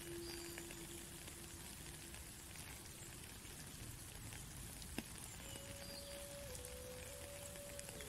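Steady rain with scattered single drops and one sharp tap about five seconds in, under a slow indigenous flute melody: a long low held note that fades out by about three seconds in, then from about five and a half seconds a higher note that steps down.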